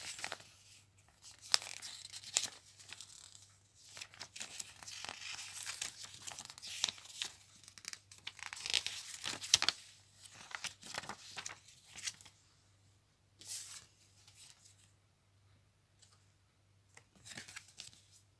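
Paper leaflets being handled and their pages flipped: irregular rustling and crinkling of paper, busy for about the first twelve seconds, then only a few short rustles.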